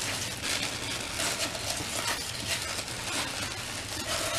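Continuous rustling and crinkling of packaging being handled, starting suddenly and running as an even, hissy rustle.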